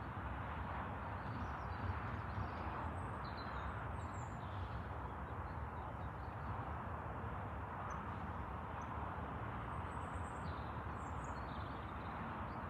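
Outdoor lakeside ambience: a steady background rush with faint, scattered bird chirps.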